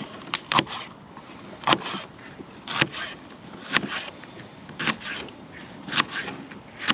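Kitchen knife slicing a red sweet pepper into strips on a plastic chopping board, the blade tapping sharply on the board about once a second.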